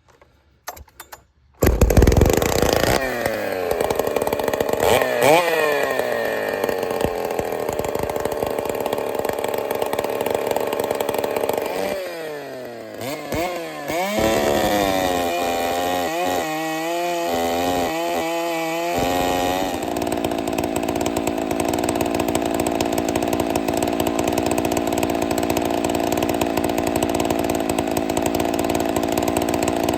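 Ported Partner P70 70cc chainsaw's two-stroke engine starting about two seconds in and being revved several times, pitch rising and falling. Midway its pitch wavers unevenly for a few seconds, then it runs steadily at high speed for the last ten seconds.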